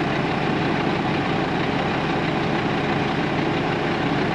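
Diesel engine of a tandem-axle dump truck running steadily with its loaded bed raised for dumping gravel.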